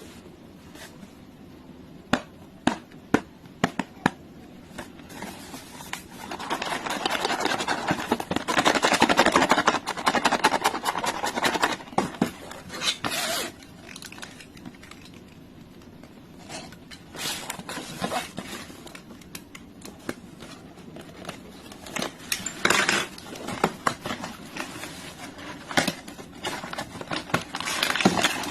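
Hands opening blind-box packaging: a run of clicks and taps, then longer stretches of scraping and rustling as the box and its wrapping are opened and pulled apart.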